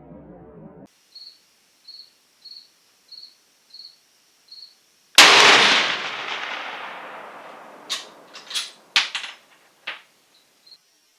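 A single loud rifle shot from a 416 Ruger bolt-action (Ruger M77 guide gun) about five seconds in, with a long echoing tail that dies away over about three seconds. It is followed by a few sharp clicks and clacks. Before the shot, faint high chirps repeat about every half second.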